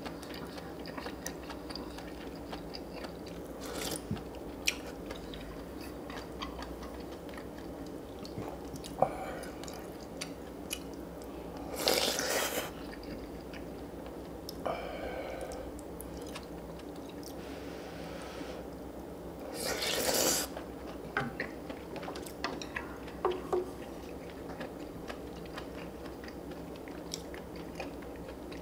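Close-miked eating sounds: chewing and crunching with scattered sharp clicks, and two louder bursts about 12 and 20 seconds in, over a steady low hum.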